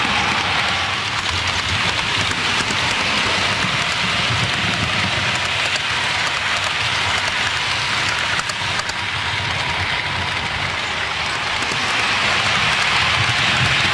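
Model trains running on the layout's track: a steady rolling rattle of small metal wheels on rail with a low motor hum and fine clicking over the rail joints.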